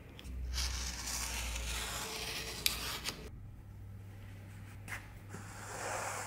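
Thread being pulled through the stitching holes of a leather knife sheath during hand-stitching: one long pull of about three seconds with a sharp click partway through, then a shorter pull near the end.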